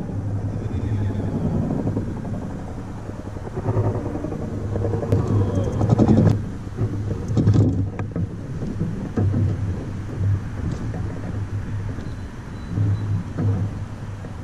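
Wind rumbling steadily on the camera microphone while a hooked smallmouth bass is played on a spinning rod and reel. A few sharp clicks from the rod and reel come from about five to eight seconds in.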